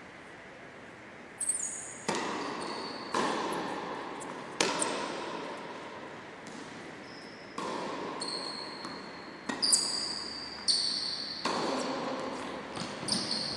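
Tennis rally in a large sports hall: a dozen or so sharp racket strikes and ball bounces, each echoing for a long time, with short high squeaks of shoes on the synthetic court floor.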